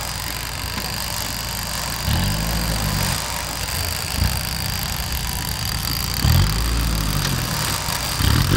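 Engine of a modified off-road competition 4x4 revving as it crawls over rocks and a dirt mound. The revs surge and fall back about two seconds in, again around six seconds, and near the end.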